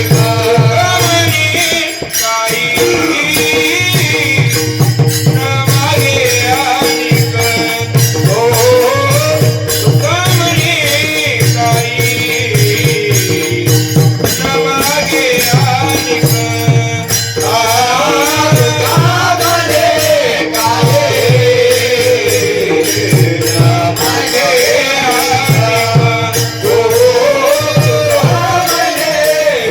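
Marathi Varkari bhajan in a traditional tune: a man singing a gliding melody over a held drone, accompanied by mridang (pakhwaj) drum strokes and small cymbals ticking in time.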